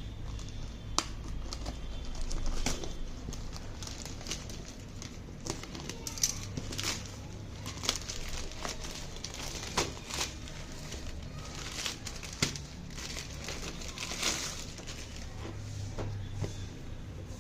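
Parcel packaging being handled and opened: plastic crinkling and rustling, with scattered sharp clicks and taps.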